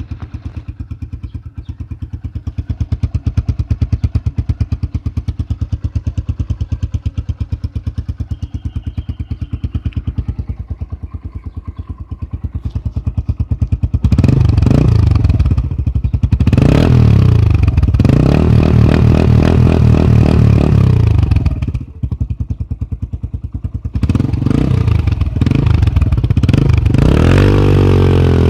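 Yamaha XTZ 125's single-cylinder four-stroke engine running through an aftermarket FMF 4.1-style muffler. It idles with an even pulse for about fourteen seconds, then is revved: rising and falling blips and a held high rev, a brief dip a little past twenty seconds, then more revving near the end.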